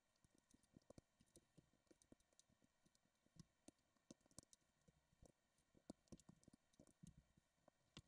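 Faint, irregular clicks and taps of plastic LEGO bricks being picked up, handled and snapped together, several a second.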